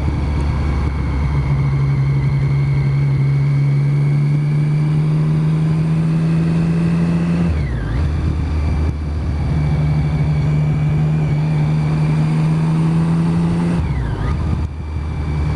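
Triumph motorcycle engine running under way at steady revs with wind and road noise. Its note dips and picks up again twice, about halfway through and near the end.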